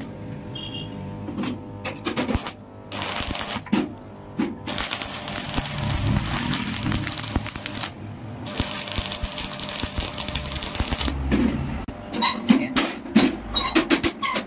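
Electric arc welding steel: the arc crackles and hisses in two runs of a few seconds each, with a short break between them. Scattered metal clicks and handling come before the welding, and a quick series of sharp metal knocks near the end.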